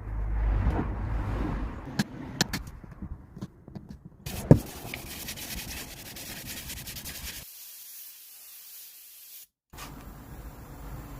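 Handling and tool noise from hot-stapler repair work on a cracked plastic bumper: rubbing, a few sharp clicks with the loudest about four and a half seconds in, then a steady hiss.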